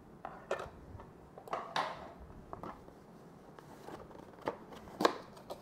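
Hands handling small plastic drone propellers and their packaging: a scattered series of short plastic clicks and rustles, the loudest near the end.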